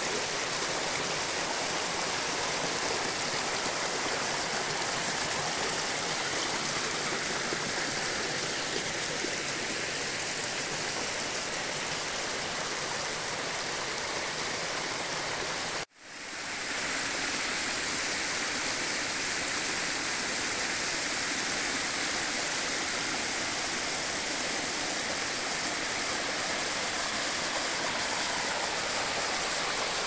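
Shallow woodland stream cascading down a series of mossy rock steps: a steady rush of running water. About halfway through it cuts out for an instant and fades back in.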